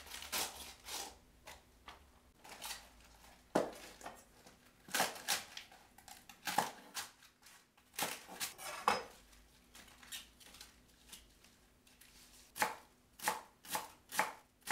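Cabbage leaves pulled off the head, then cut with a cleaver on a wooden cutting board, each stroke crunching through the leaves and knocking the board. The strokes come in a quicker, steady run near the end.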